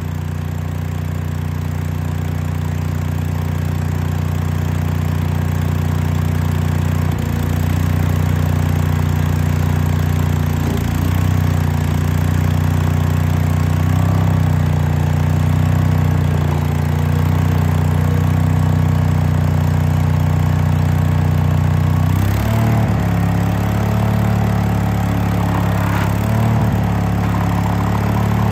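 Case 1816C skid steer's small gasoline engine running steadily, its note shifting about 7 seconds in and again about 22 seconds in as the drive is tried, with a wavering whine after the second shift. The machine strains without moving, which the owner reads as the hydraulic pump starving for oil.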